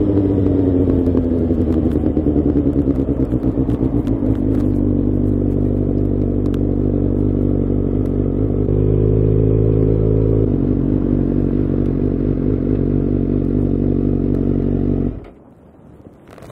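Suzuki GSX-R600 inline-four engine running at low revs as the bike rolls slowly, its pitch easing down at first and rising briefly about nine seconds in. About fifteen seconds in the engine is switched off and the sound cuts off suddenly.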